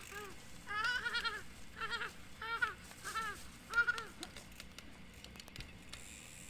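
A series of short, wavering, bleat-like animal calls, about two a second, dying away about four seconds in.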